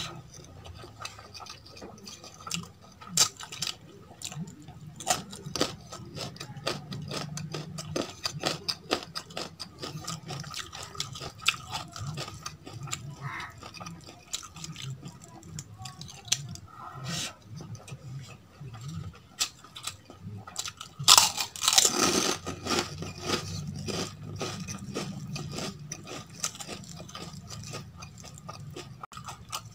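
Close-miked eating of rajma and rice by hand: a steady run of wet mouth clicks and chewing, with crunching. There is a louder, denser crunching burst about 21 seconds in.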